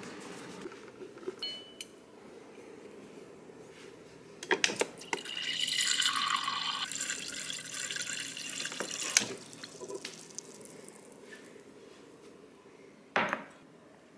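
Water dispenser pouring water into a glass with ice for about four seconds, cut off with a click. A few clicks come just before the pour, and one short sharp sound comes near the end.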